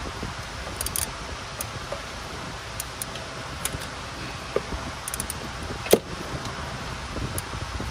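Hand tools clicking and clinking against metal as a torque wrench and socket are fitted onto a starter mounting bolt, with one sharper click about six seconds in, over steady background noise.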